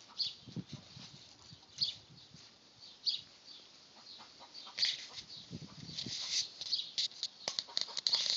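Backyard chickens clucking, with short high calls about every second and a flurry of quick rustling near the end.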